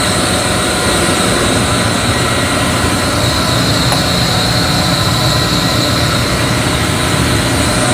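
Large industrial air compressor running at a steady loud pitch, with a constant high whine over a low hum.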